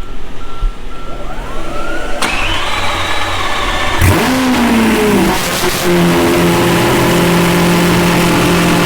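Lamborghini Aventador SVJ's V12 starting through a titanium exhaust with test pipes. A rising starter whine, then the engine catches, flares loudly about four seconds in, and the revs fall away and settle into a steady idle.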